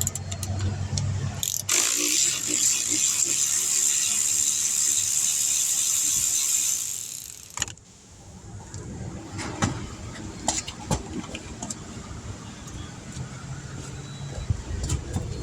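A low hum gives way to a loud, steady spray hiss for about six seconds, which stops abruptly. Light metallic clicks and clinks of hand tools on the brake parts follow.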